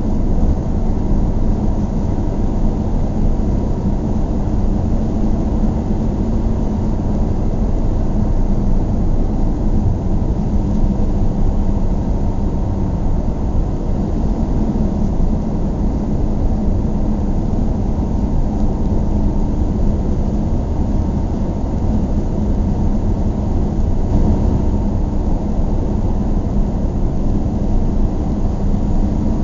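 Steady low rumble of a car driving along: engine and tyre noise, with no change in pace.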